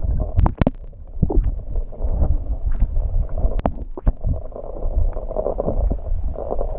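Muffled underwater rumbling and sloshing of water around a submerged camera, with scattered sharp knocks against the housing.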